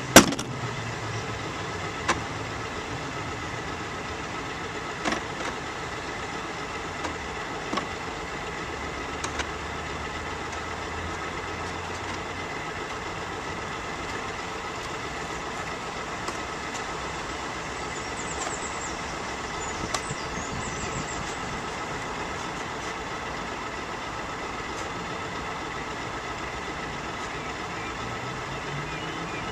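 A model vessel's on-board electric motor and electronics give a steady hum and whine, with a sharp knock at the very start and a few faint clicks later. The motor's tone drops away at the start and climbs again near the end as it speeds up.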